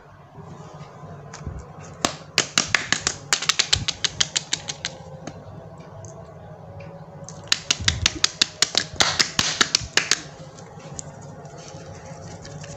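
Two bursts of rapid, sharp clicking, several clicks a second, each burst lasting about three seconds with a short gap between them.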